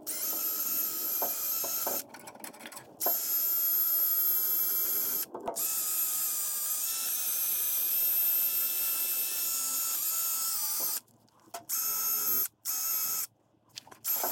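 Cordless drill spinning a wire wheel against the AMC 20 differential housing's cover mating surface, scrubbing off old gasket material and silicone. A high-pitched whine that stops and starts several times, with a long run in the middle and short bursts near the end.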